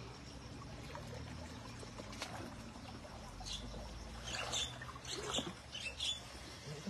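Shallow stream water trickling and running over rocks, with a handful of short splashes in the second half as hands dip and grope in the water.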